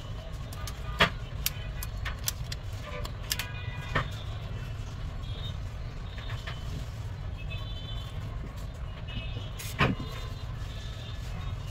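A few sharp snaps of rubber bands being stretched and released around an iPhone to clamp its new back glass, the loudest about a second in, about four seconds in and near the end. Under them runs a steady low rumble of traffic.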